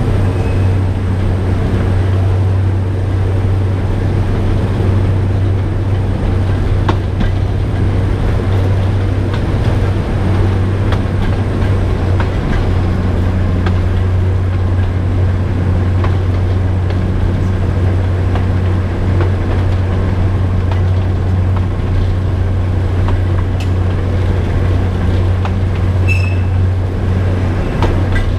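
Alishan Forest Railway train hauled by a DL-41 diesel locomotive, running steadily along the line: a deep, even drone from the diesel engine with scattered sharp clicks from the wheels on the track, and a brief high squeak near the end.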